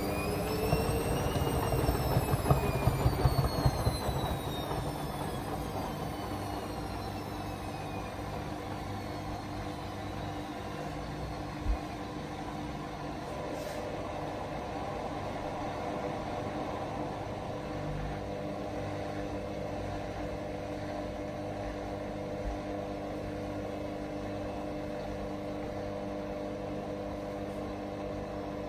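Hotpoint WM63P washing machine's drum motor whining up to a short spin and then winding down, the whine falling slowly over several seconds, with heavy knocking in the first few seconds as the towel load spins. After that the machine runs on with a steady hum and a single thump about twelve seconds in.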